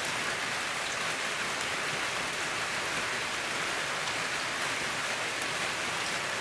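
Steady rain falling, an even continuous hiss with no break.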